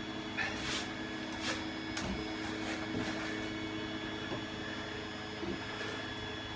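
Light knocks and scrapes of a Styrodur foam board being lowered onto the layout and pressed into place by hand, over a steady machine hum with a faint high whine.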